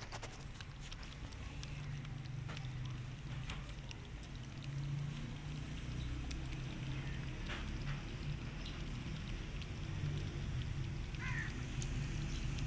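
A cat lapping and chewing chicken in broth from a plate: a run of small wet clicks over a steady low rumble, with a short high chirp near the end.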